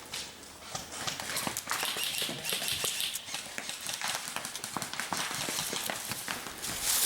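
Quick irregular footsteps of a person running over the ground, a dense patter of steps and knocks.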